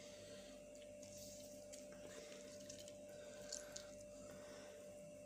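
Near silence: room tone with a steady faint hum and a few faint small clicks.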